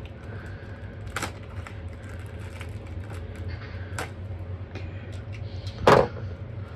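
A knife slitting and peeling plastic shrink-wrap off a Blu-ray case: scattered small crinkles and clicks, with one louder knock near the end.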